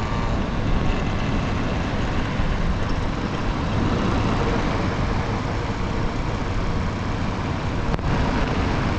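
Steady rush of wind and tyre noise from riding a Talaria Sting R electric dirt bike, with a brief click about eight seconds in.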